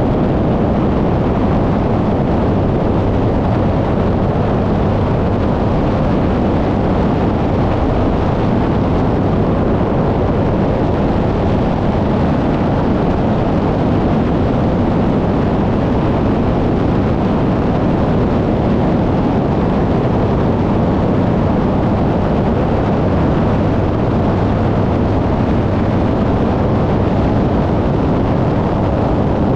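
Light single-engine propeller aircraft in flight: the engine and propeller give a steady, even drone under a dense rush of air over the microphone.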